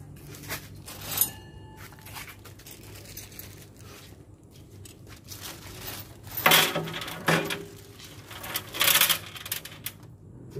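Small steel bolts and nuts clinking and rattling against the sheet-steel floor of an offset smoker's main chamber, one clink about a second in ringing on briefly. Two louder rattling bursts come past the halfway point.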